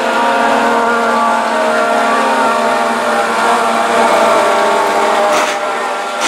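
A pack of mini late model dirt-track race cars running under power, their engines blending into a drone of several pitches at once, with a short rasp about five seconds in.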